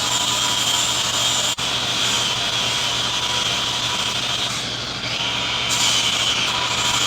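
A high-speed power carving tool runs steadily with a high whine, grinding into wood. The sound breaks off for an instant about a second and a half in.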